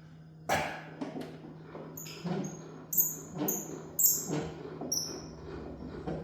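About six short, high-pitched squeaks spread over a few seconds, mixed with knocks and light clatter.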